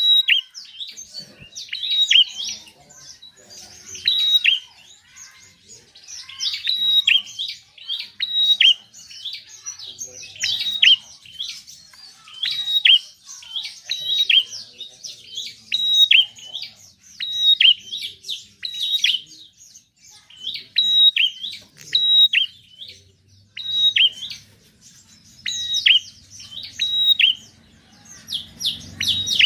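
Prinia (prenjak) singing: short, sharp chirping phrases with quick dropping notes, repeated every second or two without pause.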